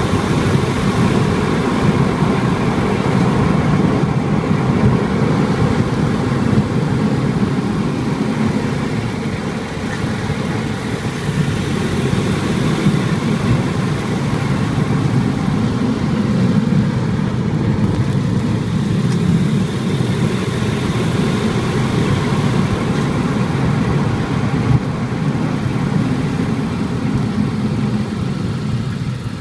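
A car driving, with steady road and engine noise and one brief knock about 25 seconds in.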